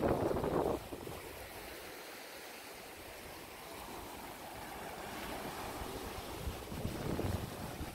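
Small waves washing onto a sandy beach, with wind rumbling on the microphone; the rush of water and wind is louder in the first second and again near the end.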